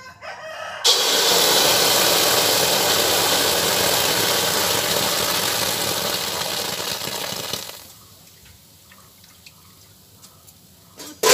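Palm fruit pulp sizzling loudly as it hits a hot iron kadai: a sudden hiss about a second in that holds steady for some six seconds, then dies away to a few faint clicks.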